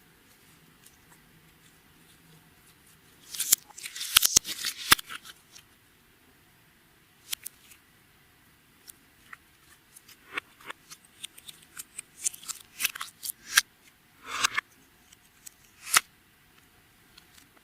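Clear slime being worked by hand, making sticky clicks and crackling pops: a dense run of crackles about three seconds in, then scattered single clicks and short crackles.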